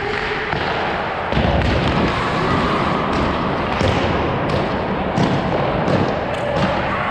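Hockey skate blades scraping and cutting on ice, with heavy low thuds and many sharp clacks of sticks and pucks in a large indoor rink.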